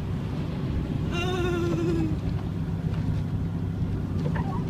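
Steady engine and tyre noise inside an SUV's cabin while driving at highway speed on a snow-covered road. About a second in, a person lets out a drawn-out, wavering cry lasting about a second.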